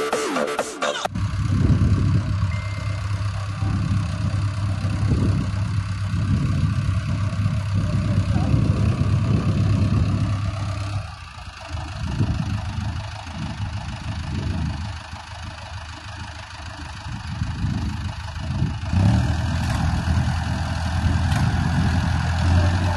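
Mahindra Arjun tractor diesel engines running with a steady low hum; the sound drops for several seconds midway, then comes back up.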